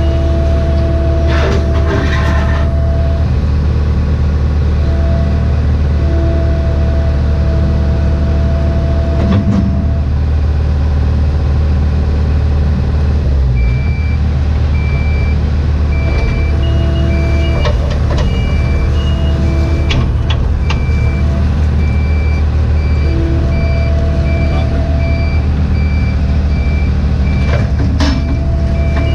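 Cat 304E2 mini excavator's diesel engine running steadily as the digging arm is worked, heard from inside the cab, with occasional knocks from the bucket in stony ground. From about halfway in, a backup alarm beeps repeatedly.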